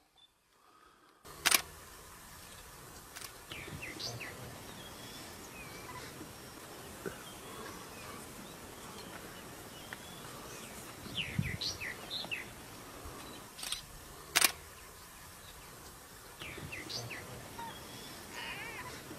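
Outdoor bush ambience: birds chirping now and then over a steady background hiss, with two sharp knocks, one about a second and a half in and one around fourteen seconds in.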